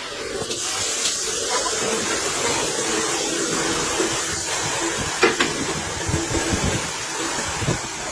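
Steady hiss of compressed air, with a few sharp metallic clicks, the clearest about five seconds in.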